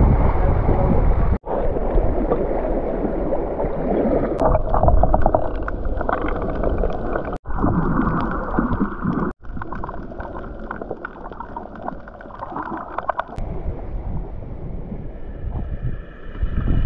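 Sea water sloshing and splashing around swimmers, with wind rumbling on the microphone; the sound cuts off abruptly three times between clips.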